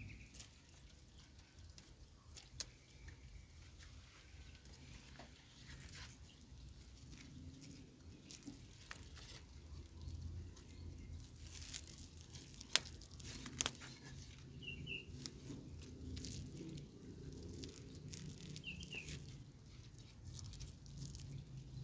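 Faint crinkling and rustling of thin PE plastic film being stretched and wound tight around an air-layering soil ball, with a couple of sharper crackles a little past the middle.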